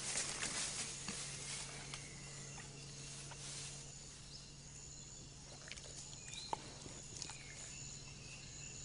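Faint rainforest ambience: thin, steady insect tones with a few short clicks and snaps a little past the middle.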